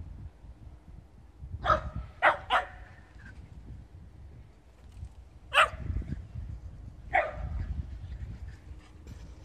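Shetland sheepdog barking: a quick run of three sharp barks about two seconds in, then two single barks near the middle and later.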